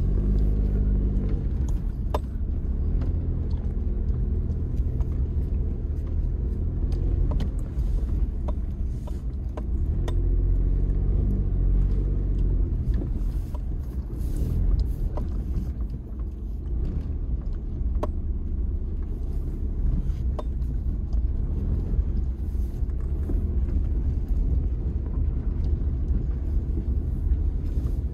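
Car engine and tyres rumbling at low speed over a rough dirt road, heard from inside the cabin, with scattered sharp ticks and knocks throughout.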